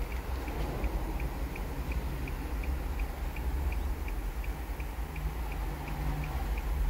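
Regular ticking, about three ticks a second, over a steady low hum.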